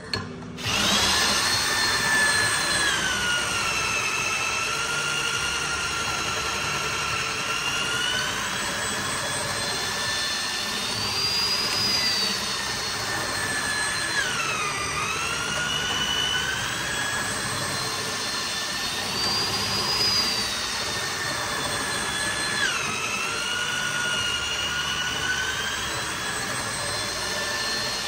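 Corded electric drill with a long bit boring lengthwise into a solid hardwood slab. The motor whine starts about half a second in and runs steadily. Twice, about halfway and again near the three-quarter mark, it sags sharply in pitch as the bit bites under load, then recovers.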